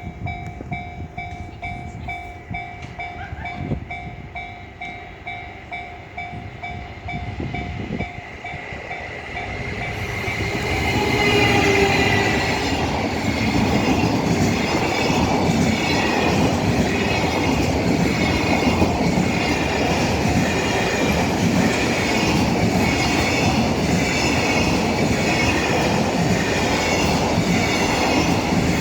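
Japanese level-crossing warning bell ringing in steady, even pulses. From about ten seconds in, a long container freight train passes loudly close by, its wheels clattering rhythmically over the rail joints.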